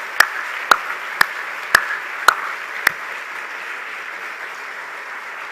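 Audience applauding, with loud, sharp claps about two a second from one man clapping close to the podium microphones; his claps stop about three seconds in while the audience applause goes on.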